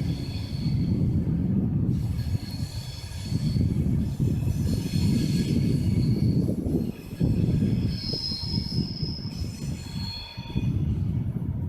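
Railway train running past with its wheels squealing against the rails: high-pitched squeal tones that shift in pitch over a heavy low rumble of the wheels.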